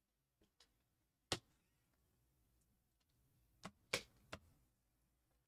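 Near silence broken by a few short clicks and taps of trading cards being handled: one about a second in, then three close together near four seconds.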